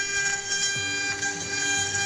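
CNC router cutting thin plywood: a steady whine from the spindle, with a lower motor tone that comes in and changes pitch about a second in as the machine moves.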